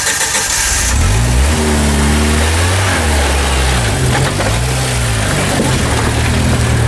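Jeep Wrangler engine revving up and down as it crawls over rocks, its pitch rising and falling again and again. A hiss sounds over it for about the first second.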